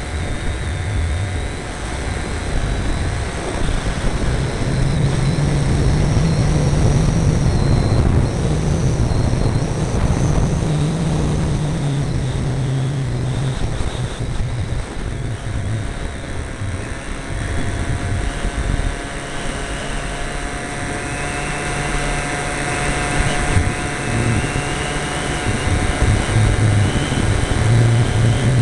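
Radio-controlled trainer model airplane's engine running in flight, heard up close from a camera mounted on the plane. Its low hum holds steady, shifting a little in pitch and level.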